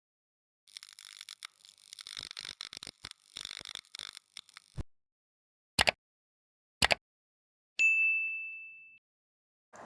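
A single high bell-like ding, one clear note that rings and fades away over about a second, near the end. Before it, faint crackling and two short sharp clicks.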